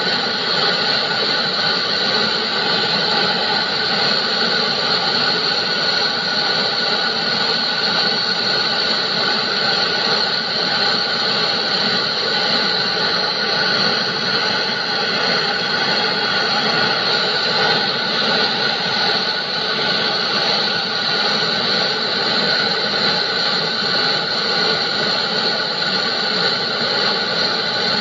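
Gas brazing torch flame hissing steadily as it heats a copper tube joint on a steel condenser for brazing with bronze rod.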